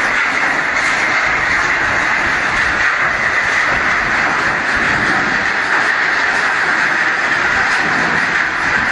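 Scrap steel crusher running, with a steady, dense metallic clatter and grinding and no pauses.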